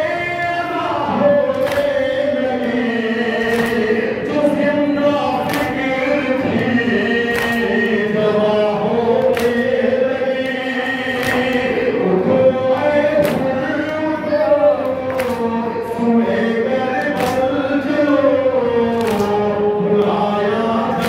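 A noha, a Shia lament, sung by a male reciter through a microphone with a group of mourners chanting along, punctuated by sharp slaps of chest-beating (matam) in a steady rhythm about every second or two.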